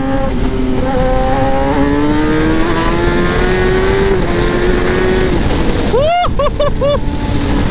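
Sport bike engine pulling hard under full throttle, its note climbing steadily and dropping once at an upshift about four seconds in, over rushing wind. About six seconds in it gives a few quick, sharp rises and falls in revs.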